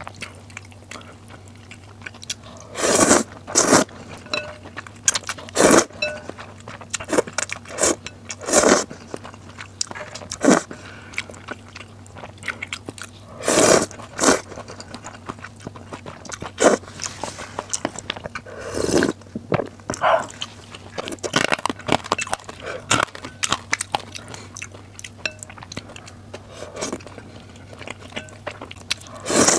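Close-miked eating of glass noodles in a spicy-sour broth: loud slurps every few seconds as strands are drawn into the mouth, with wet chewing and small clicks between them.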